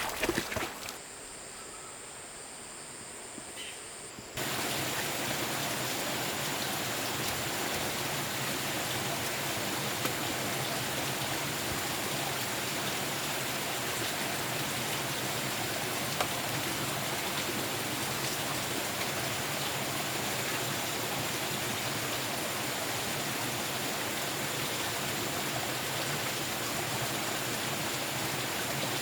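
Steady rush of running water, starting abruptly about four seconds in after a few seconds of quieter ambience, then holding at an even level.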